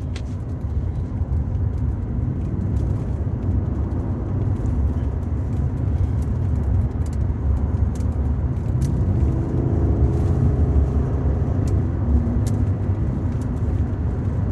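2016 Ford F-150's 5.0 V8 pickup driving at cruising speed, a steady low road and drivetrain rumble. About two-thirds of the way through, a higher droning hum swells and fades: the unexplained noise that shows up between 35 and 55 mph.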